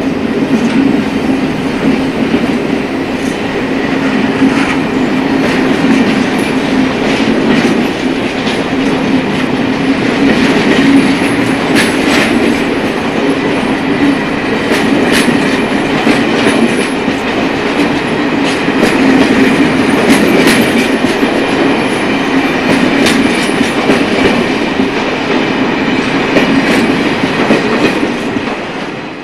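Added sound of a passenger train rolling past: a steady rumble with the clickety-clack of wheels over rail joints, fading away near the end.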